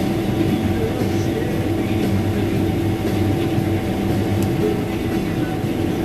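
Combine harvester running steadily while cutting wheat: a constant low mechanical drone of engine and threshing machinery with a steady hum.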